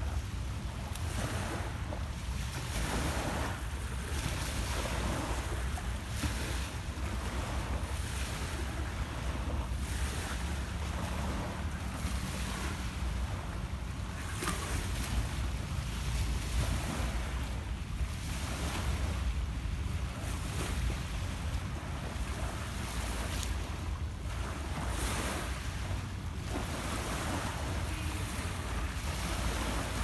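Small Lake Ontario waves repeatedly washing onto a pebble shore, with wind rumbling on the microphone.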